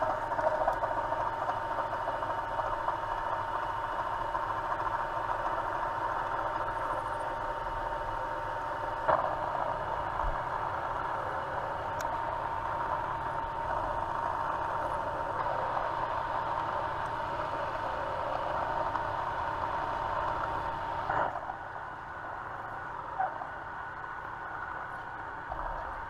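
Machine tool motor running steadily with a constant hum while holes are centre-drilled in a steel ring. There are a couple of sharp clicks, and after the second one, late on, the running sound drops quieter.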